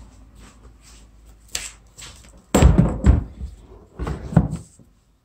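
Rustling, then loud knocks and thumps as a kayak seat's frame is handled and set down against the plastic hull: one cluster about two and a half seconds in and another about four seconds in.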